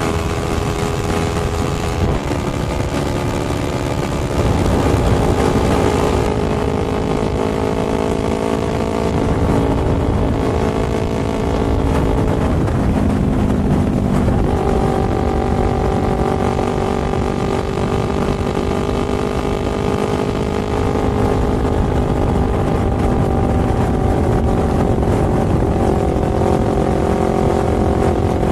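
Sport motorcycle engine running at a steady cruising speed, its pitch dipping and recovering briefly about halfway through and changing again near the end.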